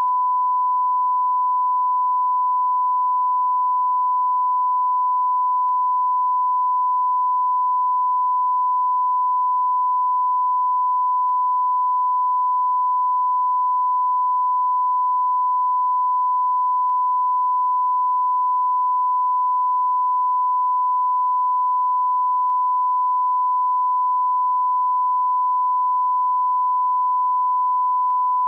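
A continuous electronic beep: one high, pure sine tone, the censor-bleep sound, held steady at a constant level without a break.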